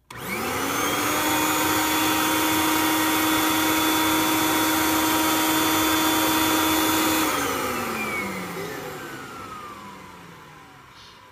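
Kirby upright vacuum cleaner switched on, its motor rising in pitch to full speed within about half a second and running steadily. About seven seconds in it is switched off and winds down, its pitch falling and the sound fading away.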